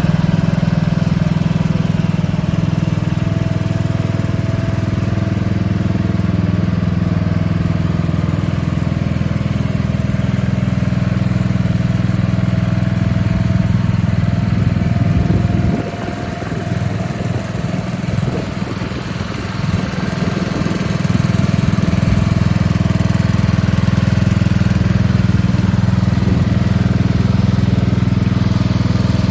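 Sabre by John Deere riding lawn mower's engine running steadily. About halfway through it drops in level and runs unevenly for several seconds, then picks back up to a steady run.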